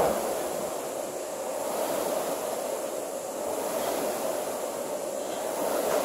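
Air rowing machine's fan flywheel whooshing steadily as it is rowed at an all-out sprint.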